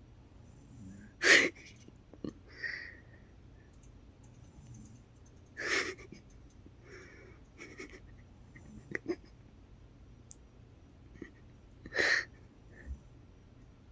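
A woman snoring in her sleep: three short, loud snores about four to six seconds apart, the first the loudest, with fainter breaths between.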